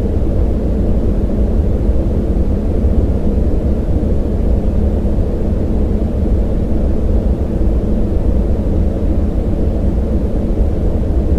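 Synthetic yellow noise: a steady, deep rushing noise with its weight in the low end and almost nothing high, like the inside of a passenger jet in flight.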